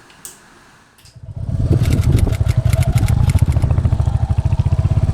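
Royal Enfield Hunter 350 motorcycle engine coming in about a second in and then running steadily, a fast even pulsing with most of its weight low down.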